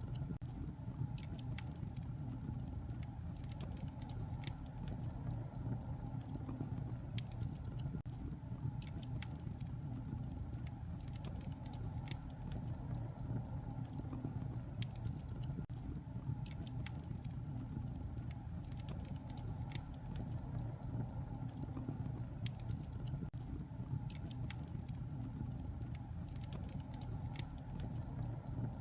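Wood fire crackling in a fireplace: frequent small, sharp pops and snaps at irregular intervals over a steady low rumble of the flames.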